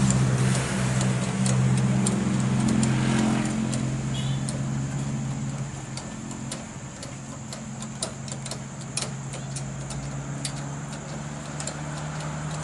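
Heavy truck diesel engine idling steadily, a little louder in the first few seconds, with scattered light metallic clicks from hand tools being used on the truck.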